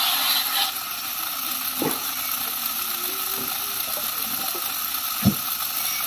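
Firewood circular saw running with a steady hiss, finishing a cut through a log in the first moment. Two dull thuds follow, the louder one near the end.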